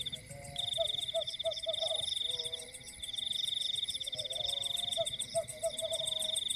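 Frogs calling at night in rapid runs of short croaks, twice, over a steady high-pitched insect trill.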